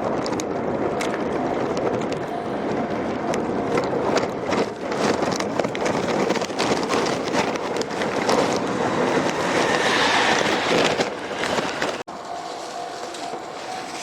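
A train passing close by: a loud, steady rush of noise with many sharp clicks. About twelve seconds in it cuts off suddenly to a quieter steady noise with a faint humming tone.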